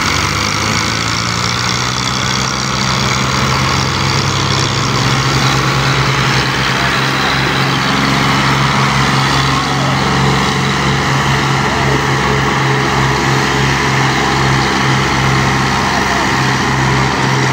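Diesel tractor engines pulling hard under heavy load. They rev up over the first few seconds, then hold at a steady, loud pitch with a slight wavering.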